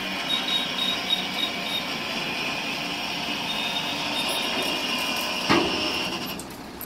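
Stone chips sliding and pouring out of a Tata 3118 tipper's raised steel body: a steady grinding rush. A sharp thump about five and a half seconds in, and the rush stops soon after.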